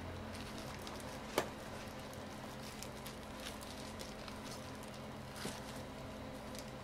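Gimbap being made by gloved hands on a plastic cutting board: soft, irregular pats and taps of hands working rice on laver, with one sharp knock about a second and a half in and a smaller one near the end. A steady electrical hum runs underneath.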